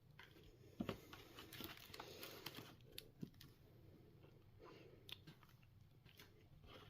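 Faint rustling and scattered light clicks and taps of cardboard and plastic packaging being handled as collector cards are worked out of a box insert.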